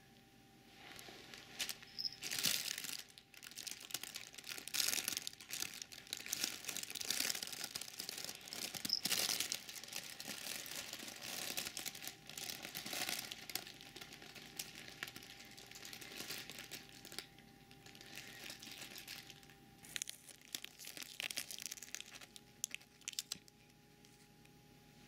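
Crinkly fabric cat tunnel rustling and crinkling as a cat scrambles and turns around inside it, on and off.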